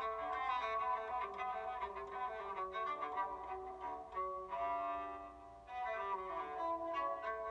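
LG Aristo 2 alarm tone playing: a melodic tune of changing notes, with a held chord a little past the middle that fades out briefly before the tune picks up again.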